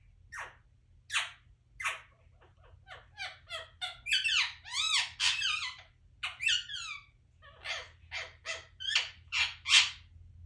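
Pet parrot chirping: short sharp chirps, a few at first, then quicker and running into a burst of rapid chattering calls in the middle, then a steady string of single chirps about two or three a second.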